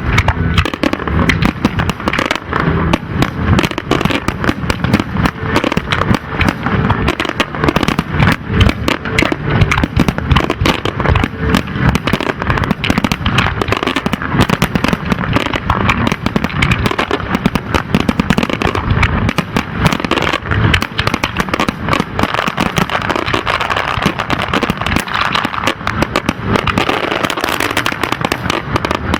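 Fireworks display in a continuous rapid barrage: dense bangs and crackling that run together at several reports a second without a pause.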